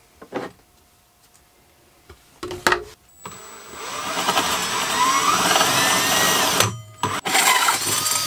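Cordless drill with a hole saw cutting a vent hole through a wooden closet wall, throwing sawdust. It spins up about three seconds in and runs loud for about three seconds with its pitch rising, stops briefly with a few clicks, then runs again near the end.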